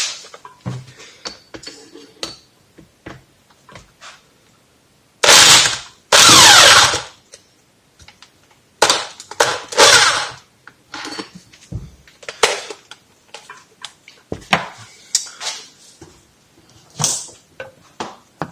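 Impact gun hammering in short bursts to loosen the Allen bolt at the bottom of a moped's front fork leg. The loudest bursts come about five to seven seconds in, the longest lasting about a second, with clinks and knocks of tools and parts being handled around them.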